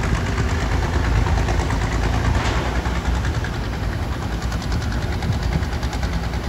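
A motor running steadily, with a low rumble and a fast, even fine ticking over it.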